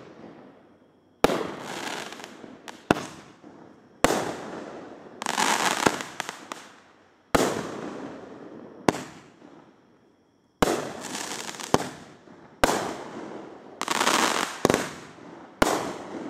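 Aerial fireworks going off one after another: a sharp bang every second or two, each trailing off in a hissing, crackling tail, with a short lull a little past the middle before the bangs resume.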